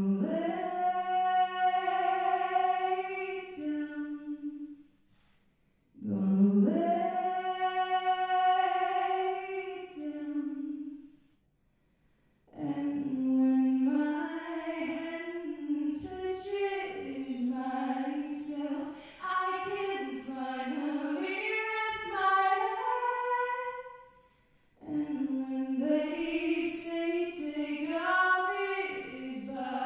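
A woman singing solo and unaccompanied into a microphone: two long held phrases with short silent pauses between them, then a quicker, wandering melodic line from about twelve seconds in, broken by one brief pause near the end.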